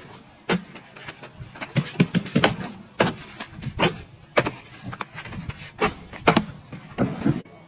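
An irregular run of sharp knocks and clatters, about a dozen of them, over a low steady background; it cuts off suddenly near the end.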